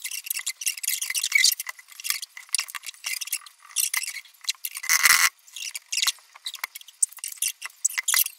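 Paper and plastic cheese wrappings crinkling and rustling as they are handled and unwrapped: dense high-pitched crackling, with a louder rustle about five seconds in.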